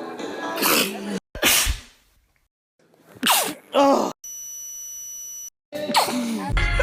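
A run of human sneezes spliced from separate clips: a voiced build-up ending in a sharp sneeze about a second and a half in, two more sneezes a little past the middle, and another voiced build-up near the end. Between them a steady high electronic beep sounds for about a second.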